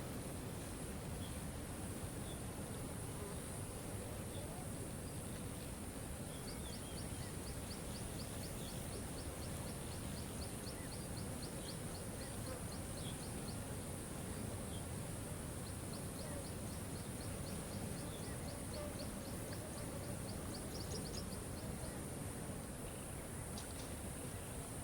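Steady rush of a waterfall, with a high, rapid ticking call of about five ticks a second that comes in twice, each run lasting several seconds.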